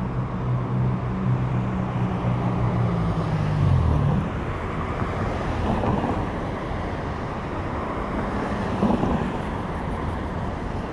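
Road traffic: cars and a pickup drive past close by, over a steady rush of tyre and engine noise. A vehicle's low, steady engine hum runs for the first four seconds or so and then stops. Louder passes come around six and nine seconds in.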